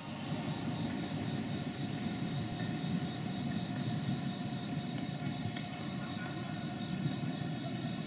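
Steady mechanical hum over a low rumble, with several faint steady tones and a couple of faint clicks.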